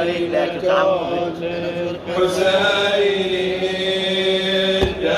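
A male voice chanting a Shia nawha lament through a microphone, in long held, slowly wavering notes. A single thump near the end.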